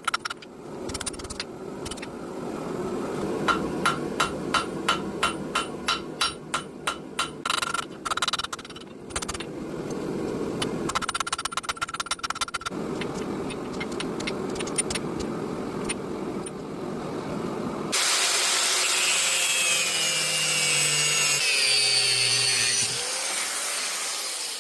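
Hammer blows on hot steel at the anvil, forging a blade: a run of evenly spaced strikes, about two a second, each with a short ring, followed by a steady rushing noise. About three quarters of the way in, a brighter, louder steady sound cuts in suddenly.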